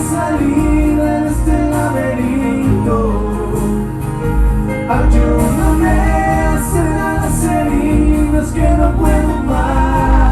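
A band playing a pop ballad: an instrumental stretch without lyrics, with sustained wordless vocal lines over a steady pulsing bass.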